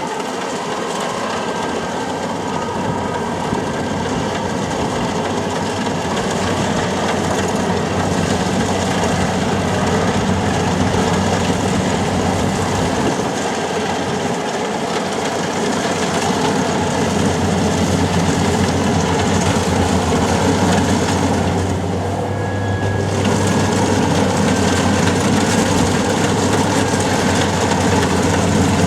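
Kubota combine harvester running steadily as it harvests rice: a continuous engine hum under dense mechanical noise from the machine. It dips briefly about three-quarters of the way through.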